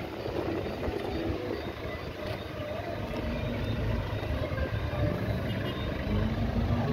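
Street traffic: the engines of a line of minibuses and cars running slowly in a queue, a low steady rumble.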